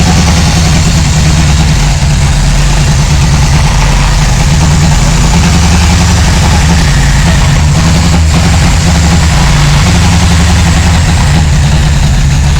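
Toyota Kijang's petrol engine idling, loud and steady.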